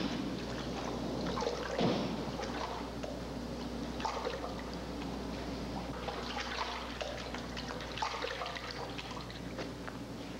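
Water running and splashing at a washroom sink, with crackling trickles over a low steady hum and two dull thumps near the start.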